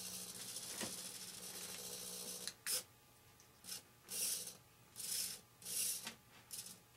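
Metal-gear RC servo humming with a steady hiss while a servo tester holds it centered; the hum cuts off about two and a half seconds in. It is followed by about six short rubbing, scraping sounds of fingers working on the servo and its horn.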